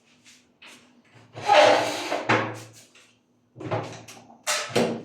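Hands working electrical wires into connectors: a string of clicks, scrapes and rustles, the longest and loudest about a second and a half in, with a faint steady hum underneath.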